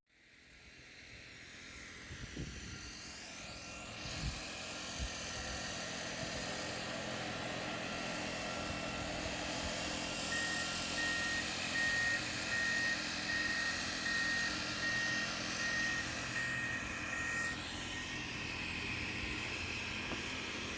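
Steady engine and traffic noise with a vehicle passing by, and a run of short, evenly spaced high beeps, about one and a half a second, in the middle.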